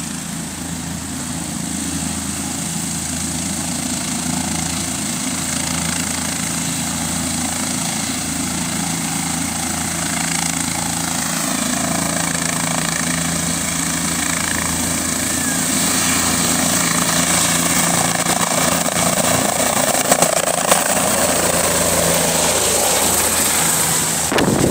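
Turbine helicopter running at takeoff power, a steady engine whine that grows gradually louder, its tones climbing in pitch about halfway through, during a takeoff with little power to spare. A short burst of wind noise hits the microphone near the end.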